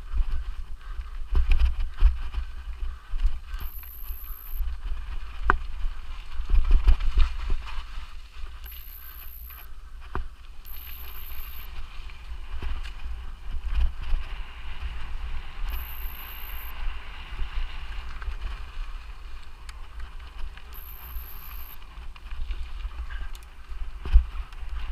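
Mountain bike ridden over a forest trail: tyre noise on dirt and roots, with irregular knocks and rattles from the bike over bumps and a low rumble of wind on the microphone. Short high-pitched tones repeat every few seconds.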